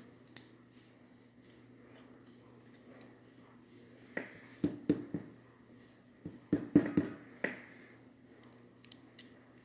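Scattered small clicks and taps of a Mul-T-Lock rim cylinder housing being handled while its driver pins and springs are worked out. The taps come in clusters about four seconds in and again around seven seconds.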